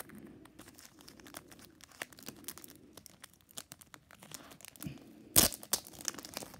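Clear plastic wrapping crinkling and rustling under hands as sealed baseball cards are unwrapped, with one short, louder crackle of the plastic about five seconds in.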